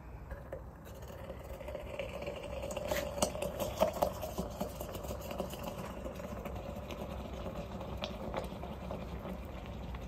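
Molten aluminium bronze pouring from a crucible into a sand mould, the mould flaring into flame with a hissing, crackling burn over a steady low rumble. It grows louder about two seconds in, with the sharpest crackles around four seconds in.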